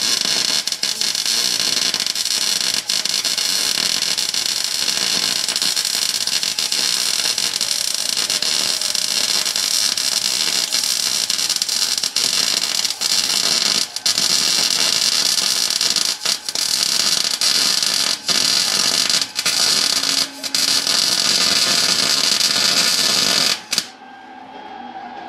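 Wire-feed (MIG) welder arc crackling steadily as a bead is laid on the Dana 44 rear axle tube, with a few brief breaks where the trigger is let off, stopping shortly before the end.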